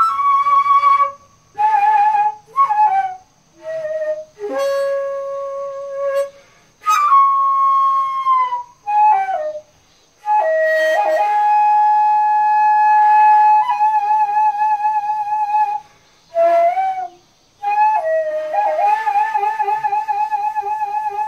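Daegeum, the Korean large bamboo transverse flute, played solo in slow phrases. Its held notes bend and slide in pitch, with short breath pauses between phrases. The long held notes in the second half carry a wide, wavering vibrato.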